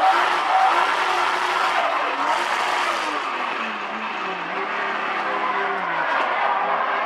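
Turbocharged 2JZ straight-six of a Toyota 86 drift car heard from inside the cabin, its note rising and falling with the throttle over the hiss of skidding tyres. The engine pitch drops steadily over the last few seconds.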